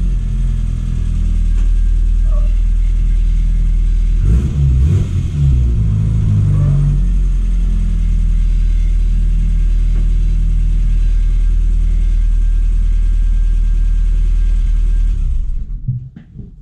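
1997 Rover Mini Cooper MPI's 1275 cc A-series engine running at idle, its revs rising and falling a little around five to seven seconds in, then switched off near the end.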